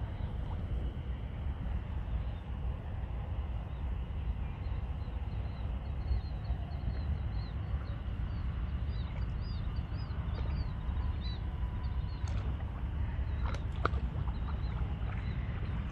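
Steady low outdoor rumble, wind on the microphone, with a small bird chirping rapidly and high in the background through the middle. A few sharp clicks come near the end.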